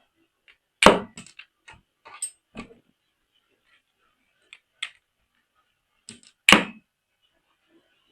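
Handling of hard plastic toys and packaging: separate sharp clicks and knocks, the two loudest about a second in and near six and a half seconds.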